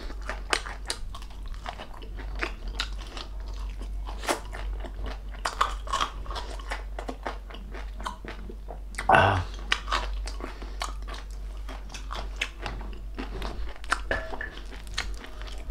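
Close-up crunching and chewing of crispy deep-fried pork knuckle skin (crispy pata): a quick, irregular run of crisp crackles as it is bitten and chewed, with one louder burst about nine seconds in. A steady low electrical hum sits underneath.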